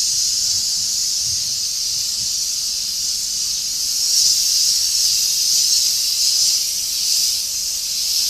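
HYVST SPT 650 airless sprayer's gun spraying Hyperdesmo waterproofing coating, giving a steady high hiss that swells slightly now and then.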